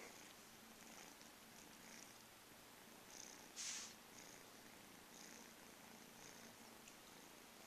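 Domestic cats purring softly and steadily, with a brief louder hiss-like sound about three and a half seconds in.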